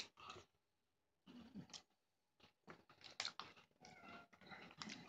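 Faint, irregular crunching of someone chewing crisp mini cookies.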